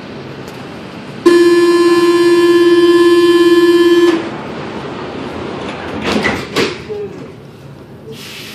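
Paris Métro MP05 train's door-closing warning buzzer: one loud, steady buzz of about three seconds, starting and stopping abruptly. A few clunks follow about two seconds later, and a hiss starts near the end.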